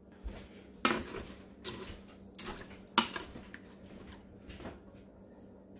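A spoon stirring pinto beans and ham in water in an Instant Pot's inner pot, clinking against the pot several times, the sharpest knocks about a second in and at three seconds.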